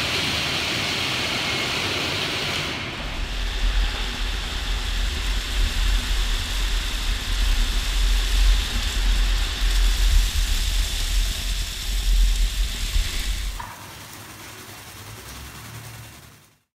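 Automatic rollover car wash running: a steady hiss of brushing and water spray, then from about three seconds in a heavy, pulsing low rumble as a spinning polishing brush works against the car. Near the end it drops to a quieter hiss of spray with a low hum, then fades out.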